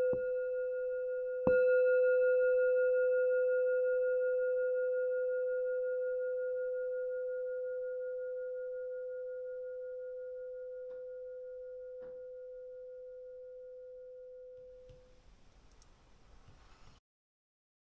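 Metal singing bowl, still ringing, struck once more about a second and a half in. It rings on one low, steady tone with fainter higher overtones and fades slowly over about thirteen seconds until it dies away. Two faint ticks come partway through, and faint room noise comes near the end before the sound cuts off.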